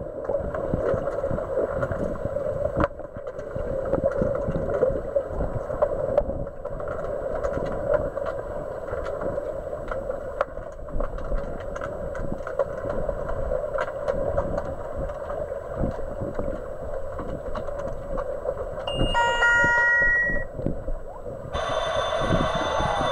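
Underwater pool noise picked up by a submerged camera: a steady muffled rush full of small clicks and knocks from the players and their sticks. Near the end an underwater sounder gives a short run of beeps, then a longer steady tone about two seconds later, the signal that stops play in underwater hockey.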